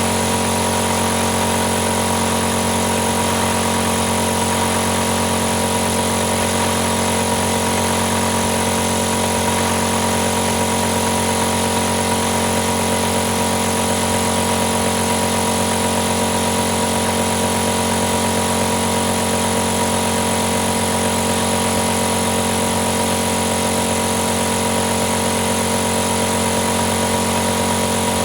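Compressor running steadily: an even motor hum with several fixed tones over a constant hiss, never changing in pitch or level.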